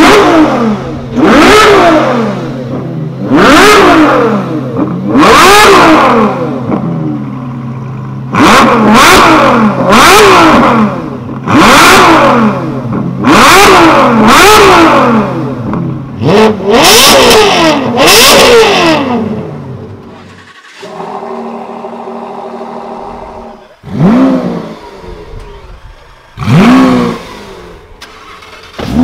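Ferrari F12berlinetta's V12 revved over and over while parked: about ten quick blips that rise and fall in pitch, one every second and a half to two seconds, over a steady idle. About two-thirds of the way in it gives way to a Lamborghini Huracán's V10 idling, which is then revved twice near the end.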